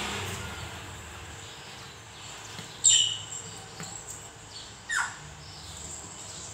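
Short high chirps of a small bird, one about three seconds in and a falling call about five seconds in, over faint steady room noise.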